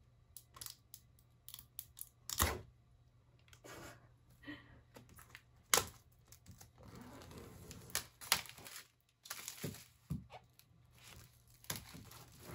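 Plastic shrink wrap being torn open and peeled off a cardboard Apple iPad Air box: a string of short sharp rips, the loudest about two and a half and six seconds in, with crinkling of the film between them.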